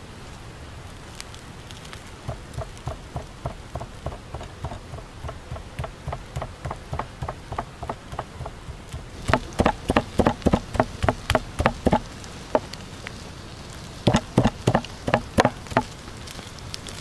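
A steady run of rhythmic strokes, about four a second, over a light hiss. The strokes start about two seconds in, grow much louder past the middle, stop for a moment, then pick up again loud near the end.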